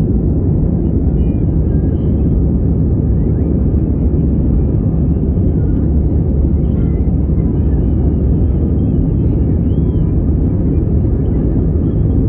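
Steady, loud low rumble of a jet airliner's cabin: engine and airflow noise heard from a window seat during the climb.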